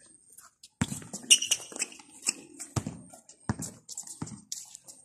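Basketball bouncing a few times at uneven intervals on an outdoor concrete court, each bounce a sharp thud, with players' voices calling out in between.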